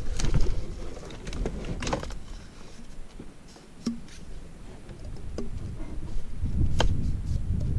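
Scattered clicks and knocks of a plastic sit-on-top kayak nosing along mangrove branches, over wind buffeting the microphone, which grows stronger near the end.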